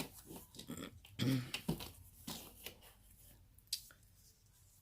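Scattered light clicks and rustles of a costume necklace and its display card being handled, with a brief low murmur about a second in.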